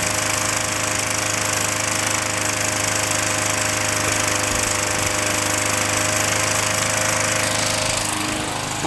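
Small lawn mower engine running steadily on a fuel-vapor feed.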